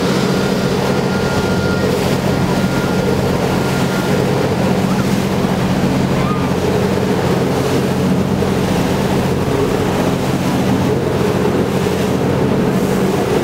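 Tour boat's engine running with a steady low drone, with water rushing past the hull and wind buffeting the microphone.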